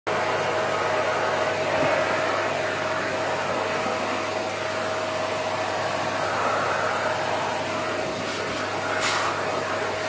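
Vacuum cleaner running steadily, a constant rushing noise with a steady whine in it.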